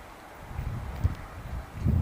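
Wind buffeting the camera microphone, an irregular low rumble that swells about half a second in, with one sharp bump about a second in.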